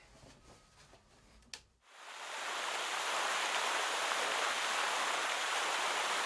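A steady, even rushing hiss, like rain or running water, that fades in about two seconds in and holds. Before it there is near silence with one faint click.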